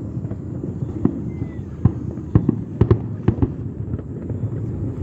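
Fireworks display: shells bursting in quick, irregular booms, several within a second at times, over a continuous low rumble of further explosions.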